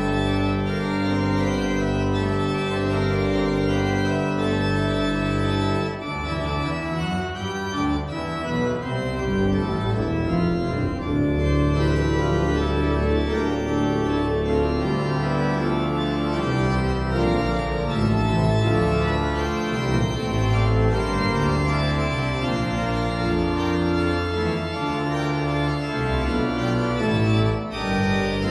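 Church organ played from a multi-manual console. Held chords over a repeating low bass note for the first six seconds, then a busier passage of moving notes over deep bass notes.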